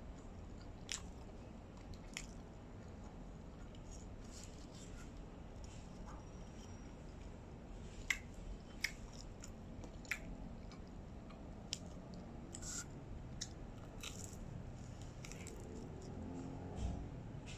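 Close-up chewing and biting into pizza crust, with scattered sharp crunching clicks, the loudest about eight seconds in, over a low steady room hum.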